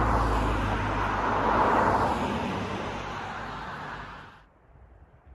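Cars driving past on a main road, with tyre and engine noise loudest in the first two seconds and then fading. It cuts off suddenly about four and a half seconds in, leaving faint quiet background.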